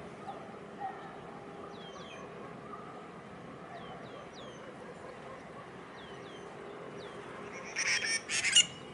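Small birds giving short down-slurred chirps every second or so over a steady distant harbour hum. Near the end come two loud, harsh bursts, the loudest sound here.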